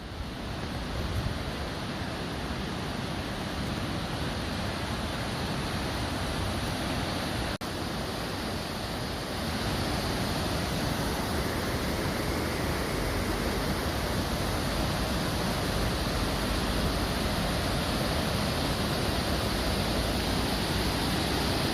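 Water of a river waterfall rushing in a steady, dense roar. It breaks off for an instant about seven and a half seconds in and grows a little louder from about ten seconds in.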